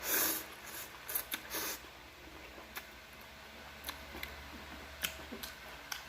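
Mouth sounds of someone eating spicy noodles and kimchi: a short noisy slurp or intake right at the start, a couple more about a second in, then scattered soft chewing clicks and smacks.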